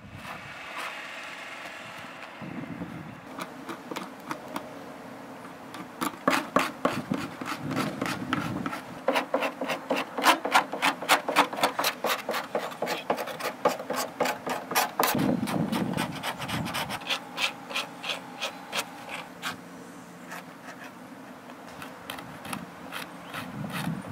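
A hand tool rubbed hard over an inked sheet pressed against a car's body, making a frottage rubbing of the car. The scraping comes in runs of quick strokes, several a second, loudest and fastest through the middle.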